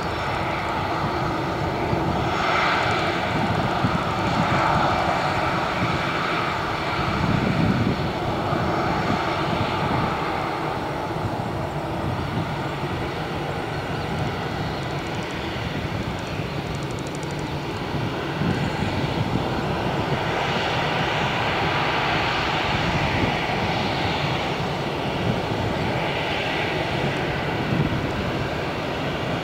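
Airbus A320 jet engines running at low taxi power as the airliner rolls slowly along the runway: a steady engine noise with a faint whine, swelling a little now and then.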